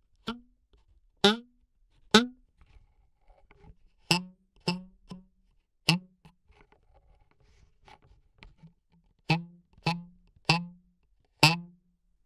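Foley hits for cartoon sound effects: about ten sharp, close-miked strikes, each with a short twanging ring. They come in uneven groups, with a pause of a few seconds in the middle.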